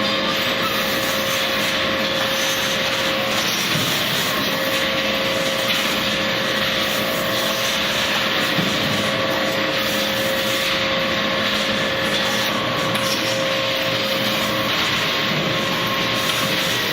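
Processing-line machinery running steadily: a constant mechanical rushing noise with a steady whine.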